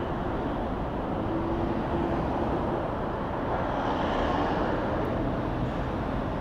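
Steady road traffic noise: the continuous rumble of motor vehicles passing on a busy city street, with a slight swell about four seconds in.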